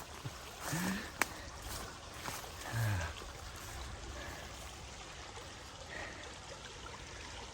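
Boots squelching and sucking in deep mud over a steady trickle of water, with two short, low vocal grunts of effort, one about a second in and one near the middle.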